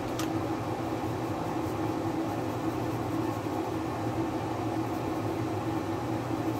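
A fan motor running steadily: a low hum with a few steady tones under it.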